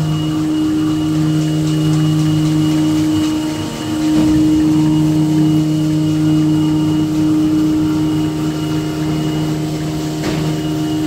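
Four-line double-embossing tissue paper making machine running: a steady mechanical hum made of constant low tones with a thin high tone above them, dipping briefly about four seconds in.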